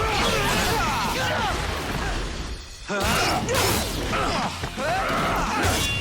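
Fight scene soundtrack: action music under whooshes, hits and shouted grunts, with a short break a little before the halfway point.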